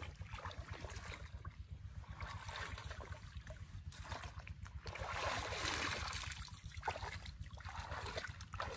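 Shallow river water sloshing and splashing as a person wades through it and lowers woven basket traps into the water. The splashing comes in uneven surges and is loudest about five to six and a half seconds in.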